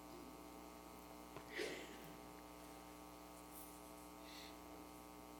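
Near silence with a steady electrical mains hum, and one faint short sound about one and a half seconds in.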